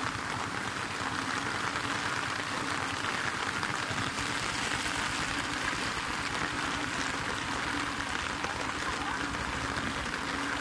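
Steady hiss of rain and moving floodwater, with splashing from legs wading through it.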